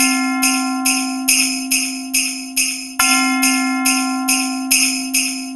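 Christmas music: sleigh bells shaken in a steady beat, about two strokes a second, over a held chord that changes about three seconds in.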